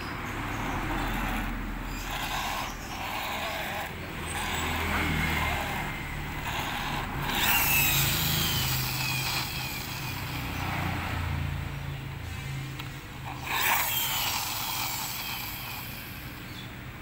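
Small plastic toy car handled and turned in the hand, with rubbing and scraping noises of plastic, and two louder scrapes, about seven seconds in and again near the end.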